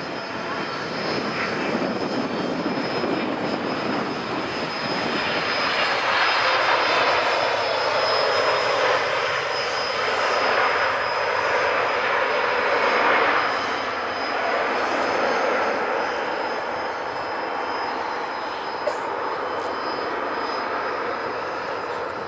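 Boeing 777-300ER's GE90 turbofan engines running as the jet lands and rolls out. The engine noise swells to its loudest about six to thirteen seconds in, then eases off steadily, with a thin high whine throughout.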